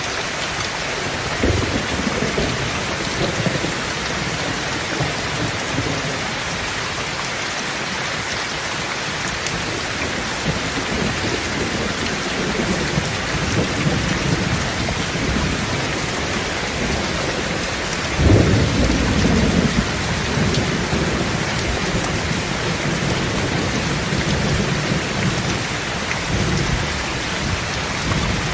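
Thunderstorm: steady heavy rain with rolling thunder. A sharp crack comes about a second and a half in, and the loudest clap breaks suddenly about 18 seconds in and rumbles on for a few seconds.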